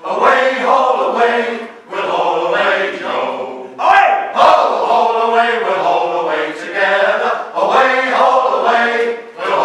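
Male shanty group singing a sea shanty unaccompanied in full chorus. The whole group comes in loudly at once, singing in phrases of about two seconds with brief breaks for breath.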